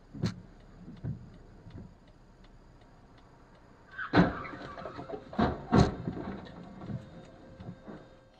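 Faint regular ticking, about three ticks a second, with a few sharp knocks about halfway through.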